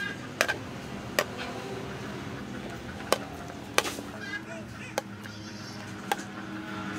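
Metal tongs clicking against a steel plate and pot as sauced chicken drumsticks are served, a sharp click about every second, with chickens calling briefly in the background.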